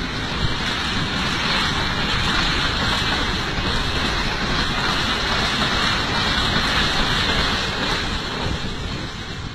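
Passenger train passing at speed close by: a steady, loud rushing noise of wheels and air with wind buffeting the microphone, easing off near the end as the last coaches go by.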